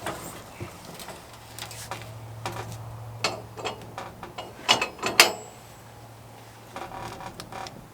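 Sawmill idling with a low steady hum while its metal parts click and knock at irregular intervals, with the loudest knocks about five seconds in.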